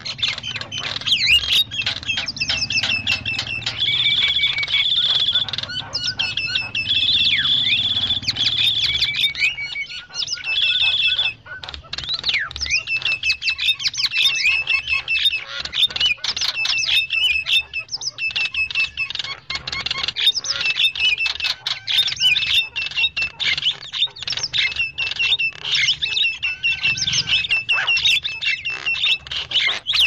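Javan mynas (jalak kebo) chattering noisily: a dense, overlapping stream of short chirping and whistled notes, with a brief lull about eleven seconds in. It is a lure recording of the kind used to call in wild mynas.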